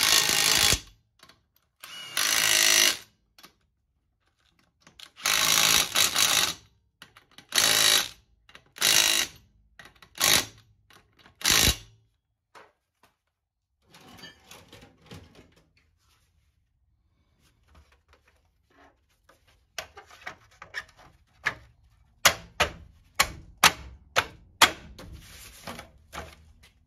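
A handheld power tool runs in short bursts of half a second to a second, about eight times, driving fasteners on the front sway bar end links. Near the end come a run of sharp metallic clicks and clinks from tools on the hardware.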